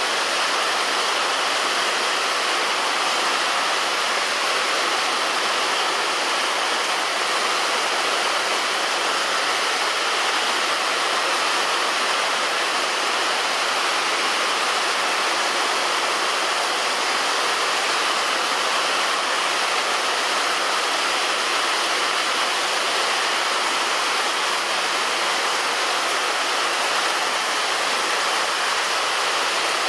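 Heavy rain falling steadily on a roof, a dense, even hiss with no single drops standing out.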